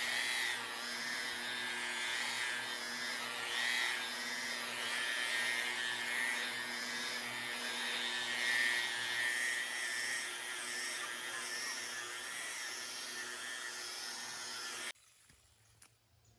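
A hand-held power tool used in woodworking runs steadily with a high whine and a fluctuating hiss, then stops abruptly near the end, leaving a few faint scrapes.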